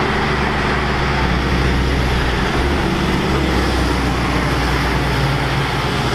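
Heavy car-transporter trucks driving past on a road: a steady diesel engine hum with tyre and road noise. The engine note grows stronger after about five seconds, as the next truck comes close.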